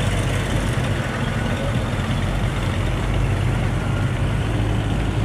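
Cars driving slowly past in a line at low revs: a steady, deep engine rumble.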